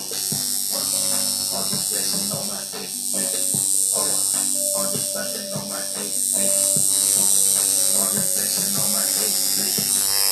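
Coil tattoo machine buzzing steadily as the needle works into skin, with brief dips in level when it lifts off.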